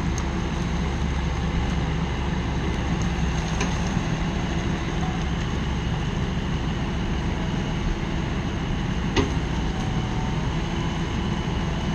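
Diesel engine running steadily, with one sharp click about nine seconds in.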